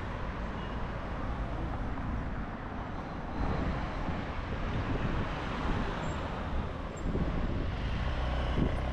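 City street traffic: a steady wash of passing vehicle engines and tyre noise with a low rumble, growing a little louder about three and a half seconds in.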